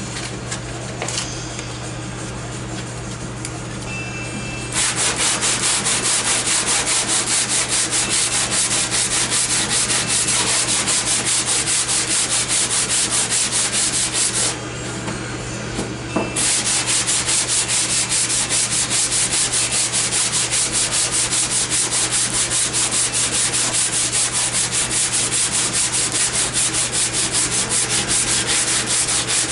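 Sandpaper rubbed by hand back and forth over the body filler on an MGB's dog leg panel, a rasping in quick, even strokes of about four a second. It starts about five seconds in and stops briefly near the middle before carrying on.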